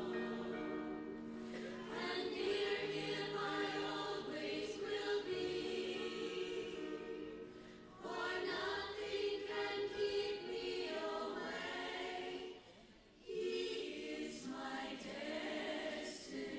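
Choir singing, sustained voices in long phrases with brief breaks between them, the clearest gap about thirteen seconds in.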